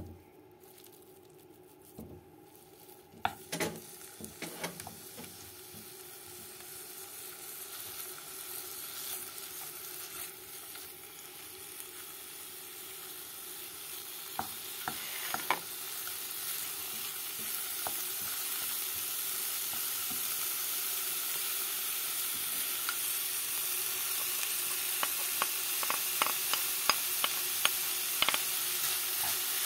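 Minced meat frying in oil in a pot, the sizzle growing steadily louder. A wooden spoon stirs it, with scattered knocks and scrapes against the pot.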